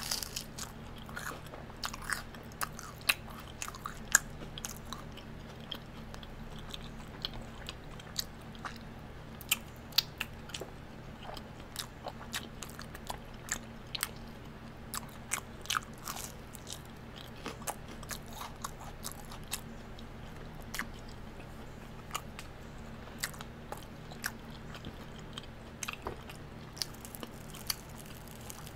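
Close-miked chewing and crunching of a crispy, batter-fried Korean corn dog, with many sharp, irregular crunches.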